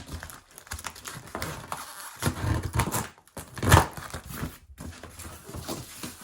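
Packing material being pulled apart and unwrapped by hand: irregular crinkling and tearing, with one louder rustle a little over halfway through.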